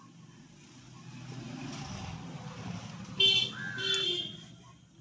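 Road traffic swelling in the background, then a vehicle horn honks twice in quick succession about three seconds in.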